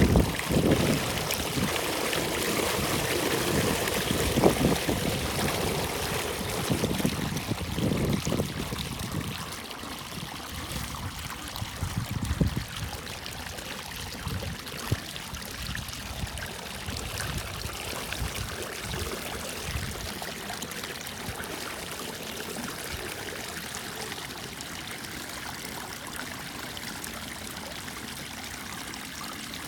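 Water rushing steadily through a pond's spillway drain. Wind buffets the microphone with low rumbling gusts through the first several seconds, then eases.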